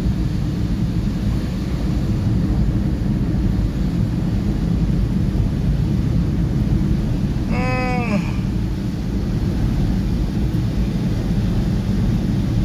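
Steady rumble of a car driving on a wet, rain-soaked road, heard from inside the cabin, with tyre and engine noise mixed together. About eight seconds in, a short pitched sound bends down and back up in pitch.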